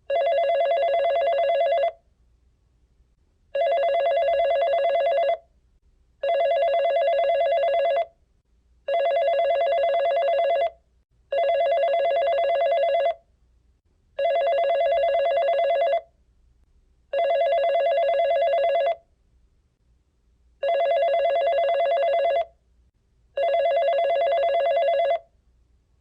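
Telephone ringing: nine rings of about two seconds each, with a trilling tone and short silent gaps between them.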